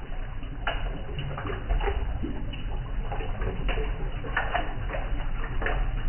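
Running water trickling and splashing as it drains through a pipe in a plastic drain box and pools on the ground, with irregular short splashes.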